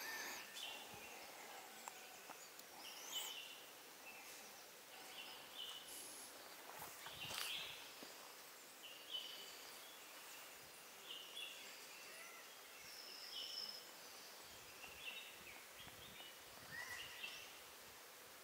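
Faint forest ambience with scattered short bird chirps and calls, a few rising whistled notes and an occasional sharp tick.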